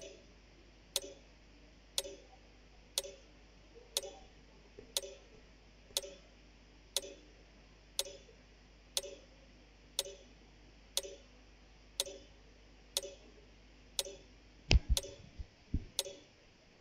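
Timer ticking steadily, one sharp tick a second. A few low thumps come near the end.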